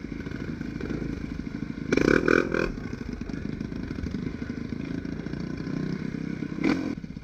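Off-road trail motorcycle engines running, briefly louder about two seconds in and again near the end.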